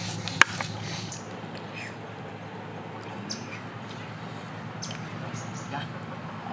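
A single sharp click of snail shells knocking together as a roasted sea snail is picked out of the ashes, followed by a few faint, short high chirps over steady background noise.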